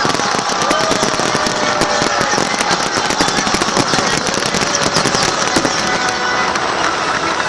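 Fireworks: a dense, continuous crackle of many small bangs in quick succession, with a few short whistles gliding in pitch.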